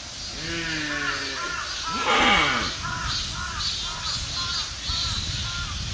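Deer calling: a drawn-out, slightly falling moan, then a louder call about two seconds in that slides steeply down in pitch. A run of short high calls follows, about three a second, over a low rumble.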